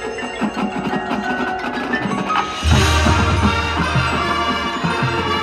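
Marching band playing its field show, ringing mallet percussion over the ensemble; about two and a half seconds in, low sustained notes come in and the music gets louder.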